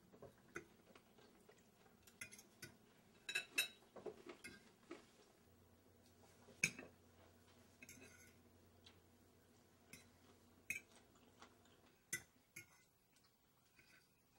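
Forks and knives clinking and scraping on dinner plates in a hushed room, scattered irregular clicks with the sharpest one about halfway through.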